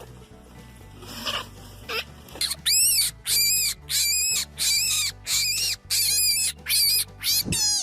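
An animal squealing over and over: high-pitched, arching squeals about two a second, starting about two and a half seconds in, over soft background music.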